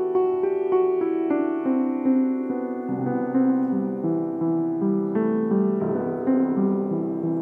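Piano playing an instrumental piece, its notes ringing on and overlapping one another.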